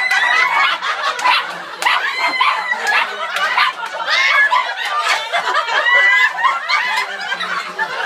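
Several people at once laughing, chattering and exclaiming over each other, with no single voice standing out.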